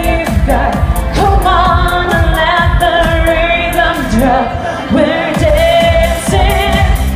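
Live pop band with a woman singing a long, wavering melodic line over a steady drum beat, heard through a concert PA.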